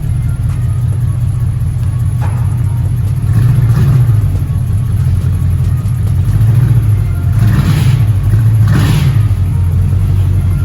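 Impala SS's LT1 V8 running through freshly installed Spintech 6000 mufflers, a steady low exhaust rumble heard from inside the car. It swells louder twice, around four seconds in and again about eight to nine seconds in. The owner dislikes the tone, saying it sounds like a raggedy old truck.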